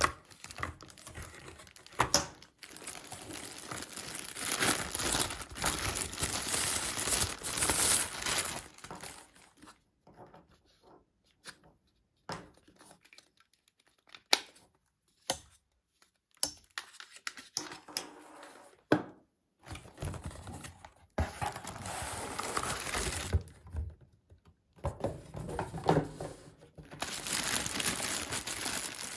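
Packaging being handled: a plastic bag crinkling and rustling, with cardboard box flaps scraping. There are longer stretches of rustling near the start and again in the last third, and a quieter middle with scattered small knocks and clicks of parts being handled.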